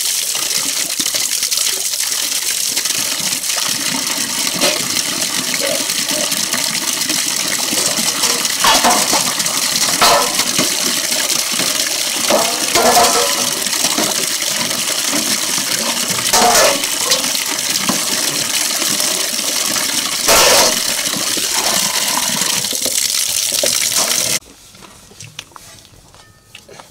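A steady stream of water splashing into a metal wok and onto metal dishes as they are rinsed, with several metallic clanks as a ladle and the wok are knocked about under it. The water stops abruptly near the end, leaving only a few faint clinks of metal pots.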